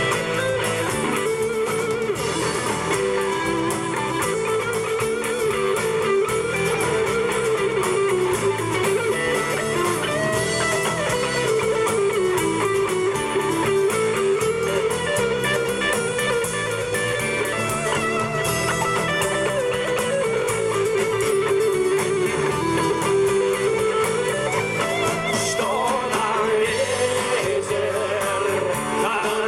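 Live rock band playing an instrumental break, with an electric guitar carrying the melody over the band.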